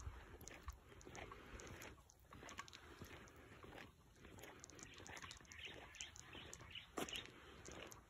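Near silence: faint outdoor quiet with scattered soft clicks and rustles, and one sharper click about seven seconds in.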